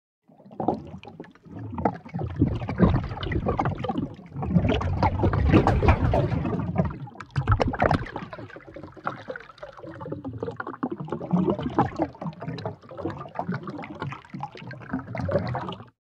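A recorded water sound effect played through a frequency shifter, so the water sound is pitch-altered rather than natural. The sound comes in uneven splashes that start about half a second in, are loudest in the first half and thin out after that.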